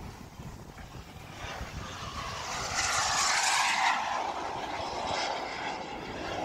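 A radio-controlled model airplane making a fast pass. Its engine noise swells to a peak about three seconds in and drops in pitch as it goes by and away.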